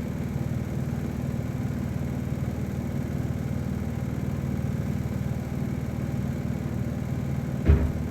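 Steady low background hum, with one brief thump about three-quarters of a second before the end.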